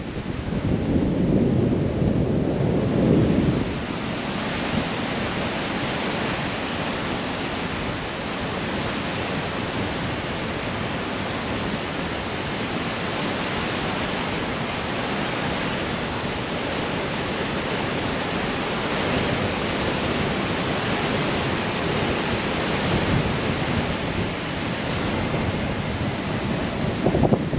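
Ocean surf roaring as waves break and wash in, with wind buffeting the microphone. A louder, deeper surge comes in the first few seconds.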